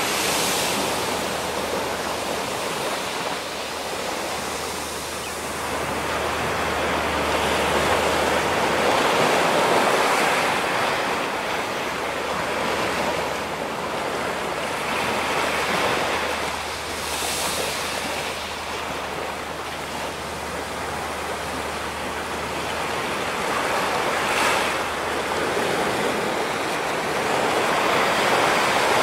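Ocean surf washing onto a rocky shore, a steady rush that swells and eases every six to eight seconds as waves break.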